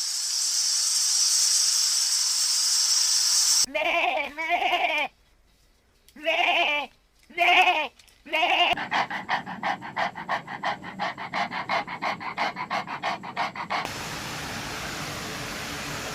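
A steady hiss, then three short wavering animal calls a few seconds in, followed by a fast pulsing call of about five pulses a second lasting some five seconds.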